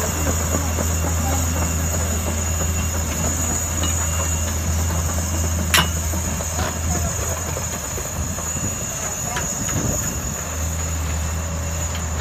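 Caterpillar 320B tracked excavator's diesel engine running steadily as the machine moves and swings toward the dump truck, with one sharp knock about six seconds in.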